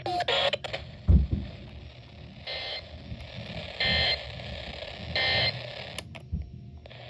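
Three identical short bursts of Emergency Alert System data tones, about a second and a bit apart, over a steady radio hiss: the end-of-message code that closes the flash flood warning just read. A clipped word sounds at the very start and a low thump about a second in.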